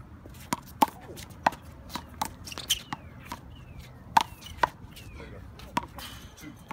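A rubber handball being slapped by gloved hands and smacking off the wall and court during a one-wall handball rally: about ten sharp, separate smacks, irregularly spaced, the loudest about a second in and about four seconds in.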